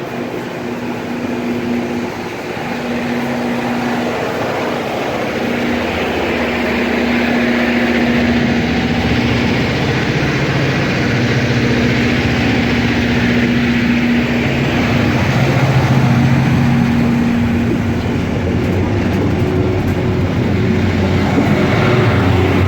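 Loram rail grinder train's diesel engines running with a steady hum, growing gradually louder.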